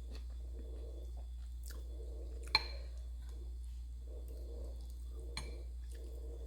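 Close-miked chewing of food, soft and rhythmic, with two sharp clicks: a louder one about halfway through and a smaller one near the end. A steady low hum runs underneath.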